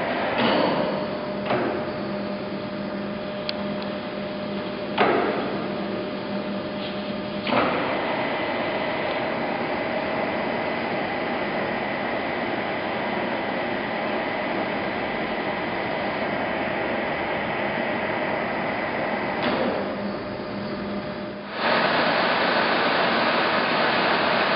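Monarch Model 1610 engine lathe running with a steady hum and whine, broken by a few sharp clunks in the first eight seconds. About 21 seconds in it suddenly gets louder, with a rushing running sound.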